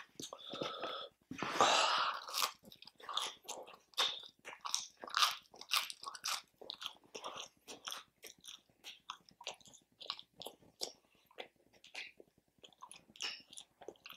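A person chewing food close to the microphone: an irregular run of wet smacks and crunches, louder and denser in the first couple of seconds, then lighter.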